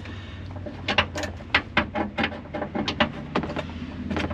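Ratchet wrench clicking in short strokes, about a dozen clicks, as a seat-belt anchor bolt is tightened down to its final torque.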